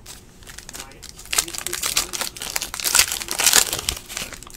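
Trading card pack wrapper crinkling and rustling as it is handled, starting about a second in and dying away near the end.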